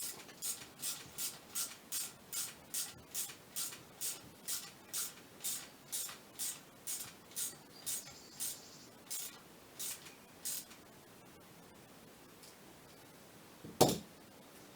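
Ratchet wrench being worked in about twenty short rasping strokes, a little over two a second, slowing and stopping after about ten seconds as the fasteners are tightened. A single loud knock follows near the end.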